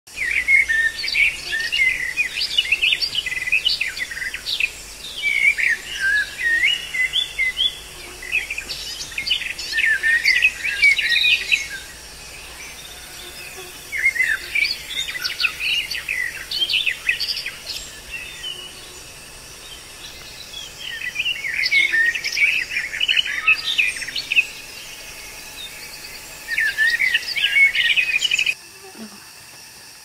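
Birds singing and chirping in busy phrases a few seconds long, with short pauses between, cutting off abruptly near the end.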